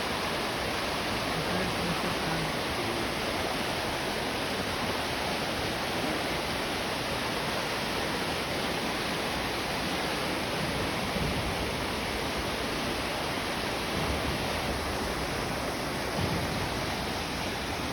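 Steady rush of flowing water, an even hiss that holds unchanged throughout.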